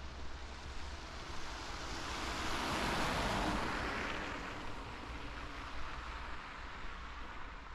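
A car passing on a wet road: the hiss of its tyres swells up, peaks about three seconds in and fades away. A steady low rumble of wind on the microphone runs underneath.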